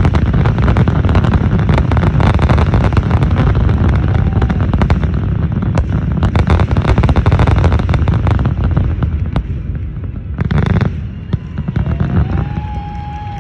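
Aerial fireworks in a closing barrage: a dense, rapid run of bangs and crackles, one last strong burst about ten seconds in, then fading away.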